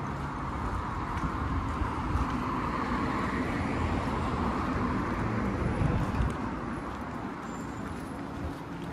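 Road traffic on a busy street, a steady rush of car and tyre noise. One vehicle passes close, loudest about six seconds in, then fades.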